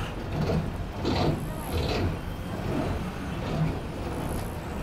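Ashok Leyland diesel bus engine running on the move, heard from the driver's cabin, with two short hissing noises about a second and two seconds in.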